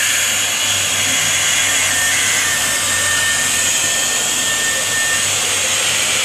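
Steady loud air hiss over a constant low hum from the CNC router's vacuum pod system moving air through the pods under the slab. A faint thin whistle joins in for a few seconds in the middle.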